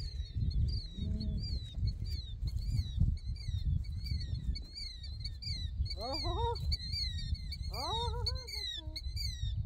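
A steady chorus of short, high chirping calls repeating several times a second over a low rumble. Twice, about six and eight seconds in, a longer, lower call rises in pitch and then levels off.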